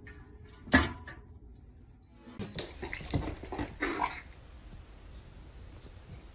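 A single sharp knock a little under a second in, a cat bumping against a glass tabletop. About two seconds later a dog gives a quick run of short vocalisations lasting about two seconds.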